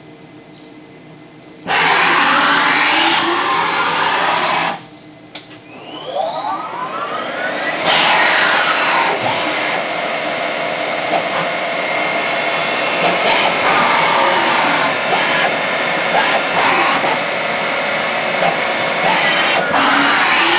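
A 1987 CNC machining center running at a 400 inch-per-minute feed, with a steady high whine. Loud rushing noise comes in a burst for about three seconds, then a rising whine, then continuous loud rushing and whirring from about eight seconds in.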